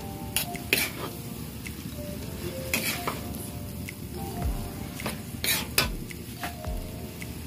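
Metal spatula stirring noodles and shredded chicken in a wok, scraping and knocking against the pan in sharp clicks that come roughly in pairs, over a steady sizzle from the hot wok.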